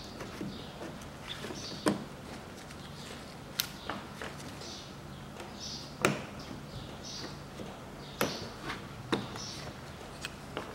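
Sharp clicks and knocks of hand tools and plastic clips as the plastic cowl panel below a Peugeot 408's windscreen is worked loose, about seven separate clicks a second or two apart.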